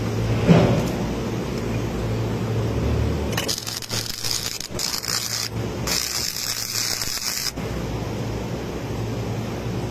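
Arc welding on the steel of a container's gooseneck tunnel: two bursts of sizzling, crackling arc noise, each about two seconds long with a short break between, over a steady low hum. A brief knock sounds about half a second in.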